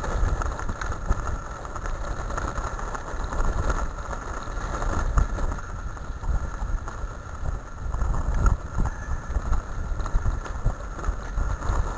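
Wheels of a dog-drawn rig rolling over a gravel track, an uneven rumble, with wind buffeting the microphone.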